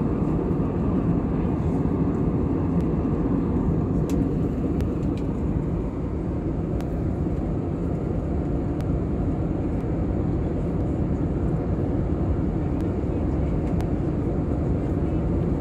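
Steady cabin noise of an Airbus A320neo in cruise: a dense, even low rush of airflow and engine noise, with a few faint clicks a few seconds in.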